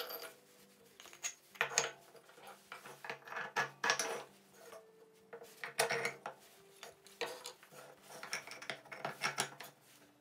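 Wooden pieces and metal rods being handled and set down on a wooden workbench: a run of irregular knocks, clinks and light scrapes.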